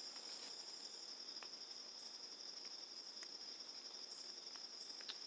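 Faint, steady high-pitched insect chorus, crickets trilling without a break, with a few faint small clicks.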